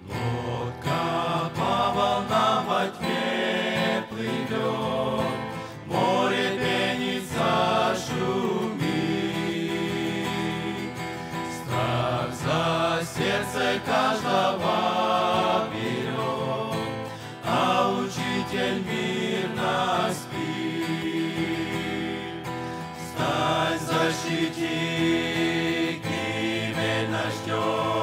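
Men's vocal group singing a Russian hymn in sung phrases, accompanied by a strummed acoustic guitar.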